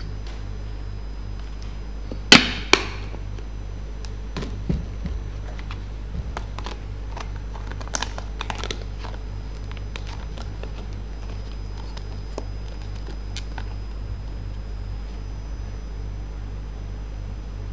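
Thin plastic food containers and lids being handled: a few sharp clicks and knocks, the two loudest about two and a half seconds in, then scattered lighter ones, over a steady low hum.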